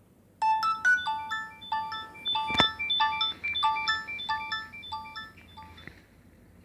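Nokia 6300 mobile phone playing a ringtone from its loudspeaker: a quick melody of short chiming notes that starts about half a second in and fades out near the end. A sharp click cuts in about two and a half seconds in.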